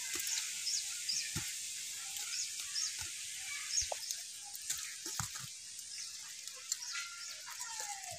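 Rural outdoor ambience: small birds chirping repeatedly, about twice a second, over a steady high hiss, with a few whistled bird notes. A few light taps sound now and then.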